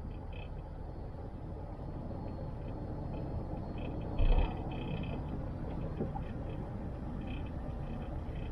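A car driving down a mountain road: steady tyre and engine rumble, with one loud thump about four seconds in and faint, intermittent high chirps.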